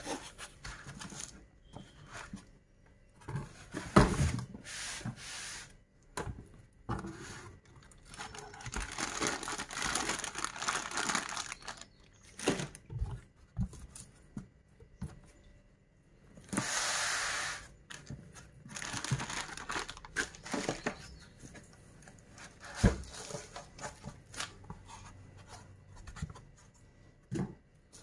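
Projector packaging handled by gloved hands: foam sheet and plastic wrap rustling and crinkling, with cardboard box flaps moved and a few sharp knocks. A little past the middle comes a louder second-long stretch of crinkling or tearing.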